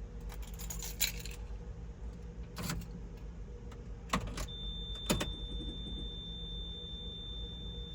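Car keys jangling and clicking as the ignition key is worked in a Lotus that fails to start. About halfway through, a steady high-pitched tone begins and holds.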